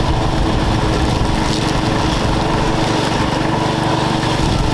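Ride-on lawn mower engine running steadily as the mower is driven slowly in first gear, with the cutting deck still raised.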